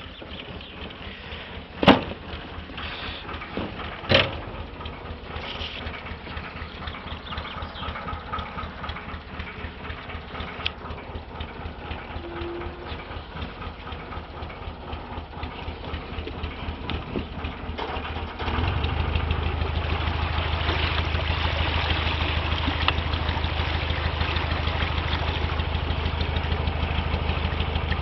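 Narrowboat's engine running with an even low beat, stepping up suddenly to a louder, steadier note about two-thirds of the way in. Two sharp knocks near the start.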